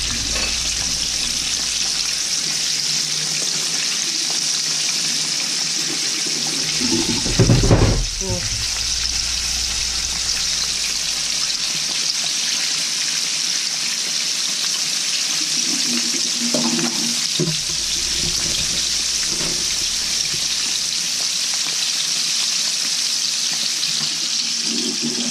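Battered chicken pieces deep-frying in a pan of oil: a steady, even sizzle of bubbling oil. A louder bump about seven seconds in and a few softer knocks a little past the middle.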